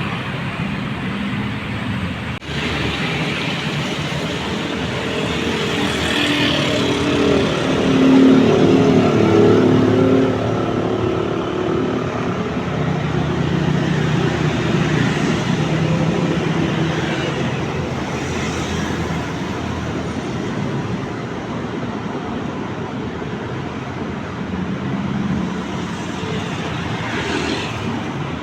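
Road traffic passing steadily, a continuous wash of engines and tyres. One vehicle passes louder and closer about eight to ten seconds in, its engine note standing out.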